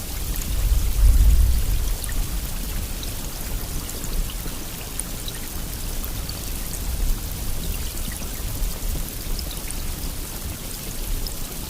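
Steady rainfall with fine, scattered drop ticks, and a low rumble swelling about a second in.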